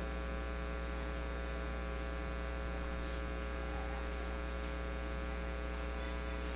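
Steady electrical mains hum, a buzzing stack of tones, with a faint hiss underneath.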